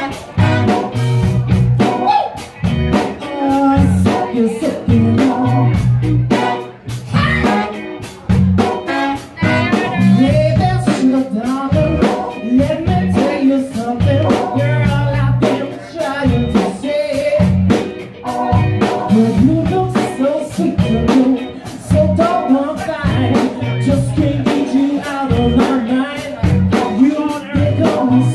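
Live cover band with a horn section playing an upbeat dance number: drum kit, electric bass and guitar under saxophone, trumpets and trombone, with a male lead vocal, recorded on a phone's microphone in the room.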